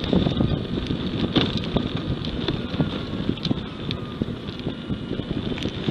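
Car driving slowly, a steady low road and engine rumble heard from inside the cabin, with a few faint ticks.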